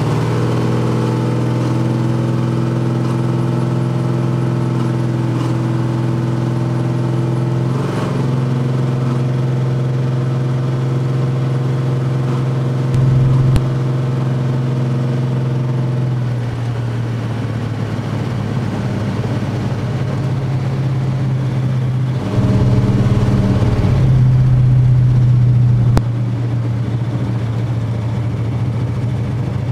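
A 1955 gasser's engine heard from inside the cabin while driving, running at a steady pitch that shifts a few times. It gets louder briefly about 13 seconds in and again for several seconds past the middle, as the throttle opens.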